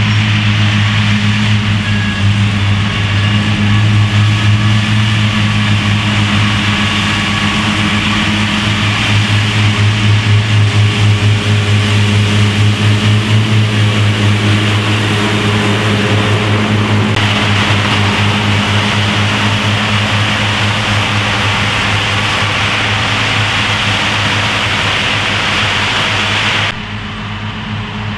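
Claas Cougar 1400 self-propelled mower working through grass: a steady, loud engine hum under the noisy whir of the machine. It turns suddenly quieter and more distant near the end.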